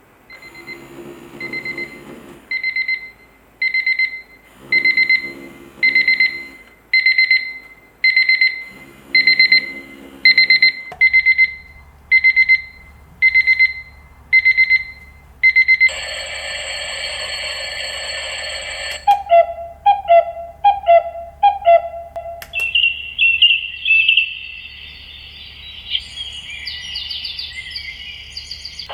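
GDT HIKARIDE COC-01 alarm clock sounding its alarm: a high electronic beep about once a second, with a lower buzz coming in three bursts over the first ten seconds. About sixteen seconds in it switches to a harsh continuous alarm tone, then a run of short warbling chirps, then a fast high trill.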